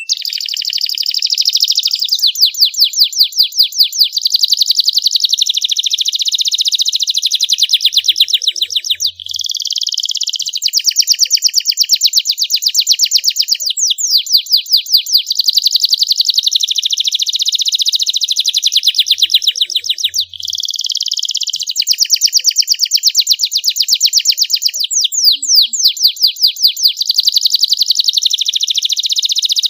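Domestic canary singing a long, continuous song of very rapid trills, one run of fast repeated notes flowing into the next, with brief pauses about 9 and 20 seconds in.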